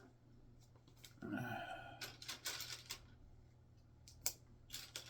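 Loose Lego pieces rattling and clicking as they are handled and sorted, with one sharp click a little after four seconds. About a second in there is a brief, falling voice-like sound.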